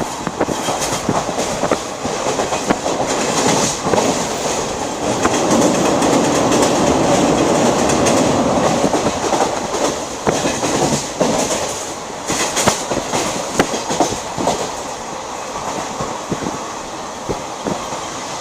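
Indian Railways express passenger train running along the track, its wheels clicking over rail joints on top of a steady rumble. The rumble swells and is loudest in the middle.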